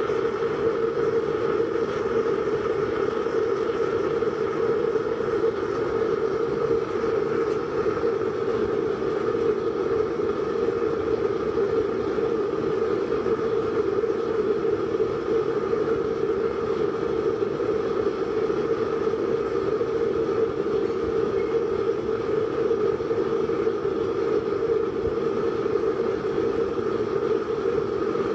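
Small waste-oil stove made from a fire-extinguisher shell burning hard with air forced in through a blower pipe: a steady rushing of flame and blown air with a constant hum, unchanging throughout.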